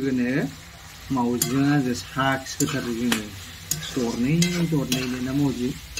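A metal spatula stirs and scrapes food sizzling in an iron wok, with a few sharp clinks. Louder, held, voice-like pitched notes sound over it.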